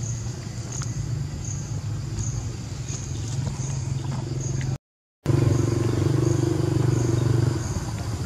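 A motor engine running steadily as a low hum, with a short high chirp repeating about every two-thirds of a second over it. The sound cuts out for half a second near the middle, and the engine is louder just after.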